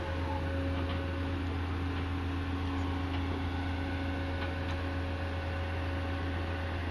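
Steady low drone of a working dredger's engine, a constant hum with a few faint clicks over it.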